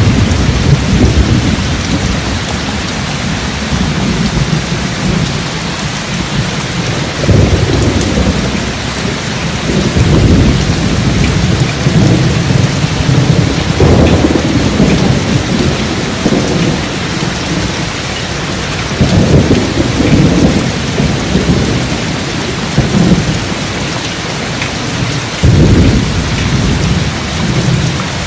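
Steady heavy rain with deep rolls of thunder that swell up and die away every few seconds.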